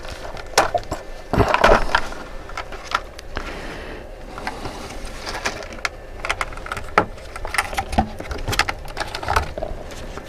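Clear plastic blister pack of a sight set being pried apart and handled in gloved hands: irregular crackles and clicks, loudest about one and a half seconds in.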